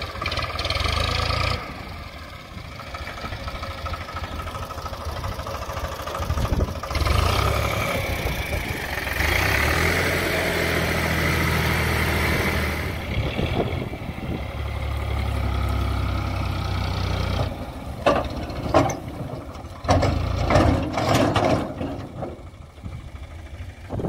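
A tractor's diesel engine runs with a steady low drone, louder through the middle stretch, as it pulls a trolley loaded with soil. Near the end, irregular knocks and thumps take over.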